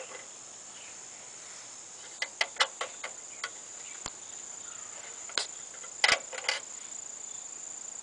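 Crickets chirping in a steady high-pitched trill, with a scattering of short sharp clicks and taps, a cluster about two to three seconds in and another about six seconds in.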